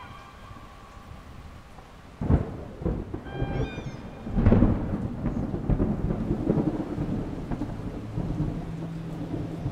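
Rain with thunder: a sharp crack about two seconds in, then a rolling rumble that swells about four and a half seconds in and keeps going. A short high call sounds briefly about three and a half seconds in.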